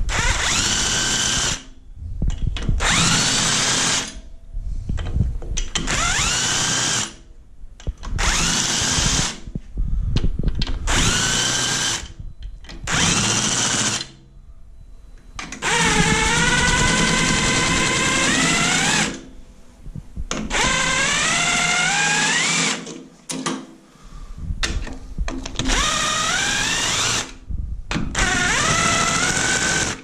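Cordless power tool spinning cylinder head bolts out of a PSA EB three-cylinder engine through a socket on an extension: about ten bursts of a couple of seconds each, the motor whine rising in pitch through most bursts as each bolt runs free.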